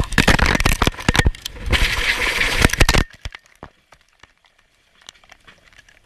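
Helicopter crashing into the ground: a rapid run of loud cracking and breaking impacts and clatter that cuts off abruptly about three seconds in, leaving only faint scattered ticks.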